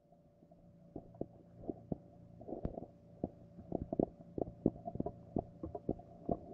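Irregular knocks and clicks, a few a second, getting louder toward the end, over a steady hum.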